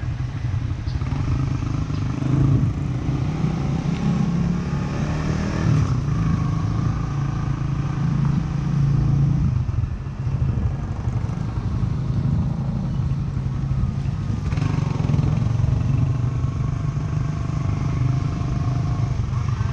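Small motorbike engine running under way, its note rising and falling a few times.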